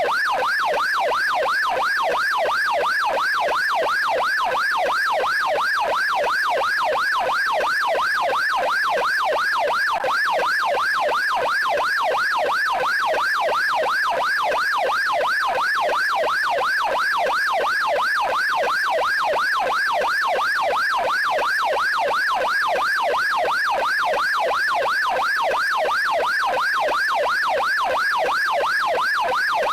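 Electronic police siren on its yelp tone: a fast, even rise and fall in pitch repeating several times a second.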